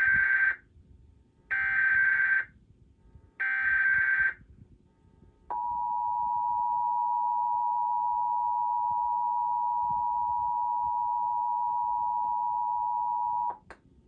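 Emergency Alert System header from a TV: three roughly one-second bursts of buzzy SAME digital data tones, then the steady two-tone EAS attention signal (853 and 960 Hz) held for about eight seconds and stopping abruptly. Together they mark the start of the nationwide EAS test.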